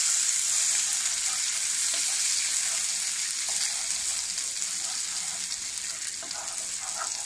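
Butter sizzling and bubbling in hot caramelized sugar in a frying pan as it is stirred with a spatula: the butter melting into the caramel for butterscotch. A steady, hissing sizzle that slowly grows quieter.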